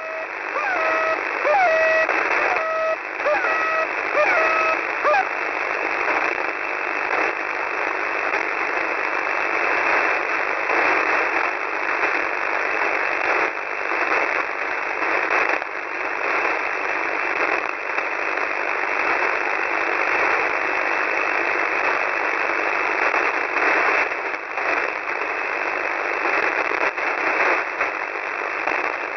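Shortwave radio static on 4310 kHz heard through a receiver's narrow single-sideband passband: a steady hiss full of crackles. A few short tones and chirps sound over it in the first five seconds.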